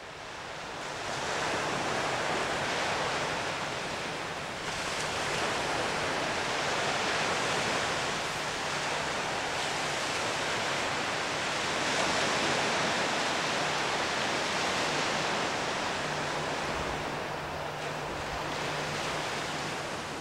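Waves washing onto a sandy beach: a steady rush of surf that fades in over the first couple of seconds, then swells and eases slowly every few seconds.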